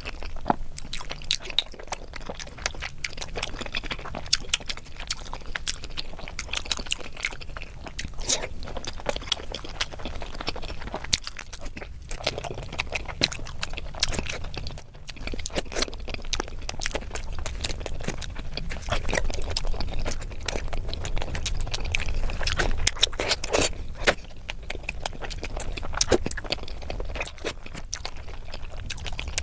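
A person chewing eggs close to the microphone: wet mouth sounds with many irregular clicks and occasional scrapes.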